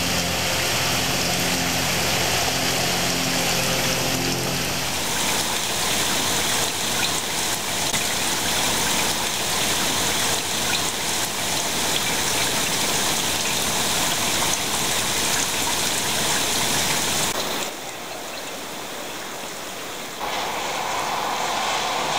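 Steady rain falling, a dense even hiss that drops quieter for a few seconds near the end.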